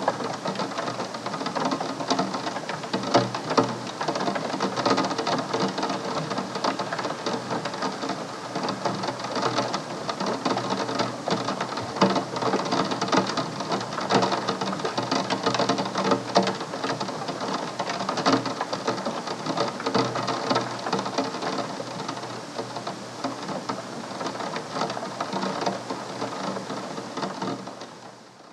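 Rain drops pelting a glass window pane in a dense, irregular patter of taps, fading out near the end.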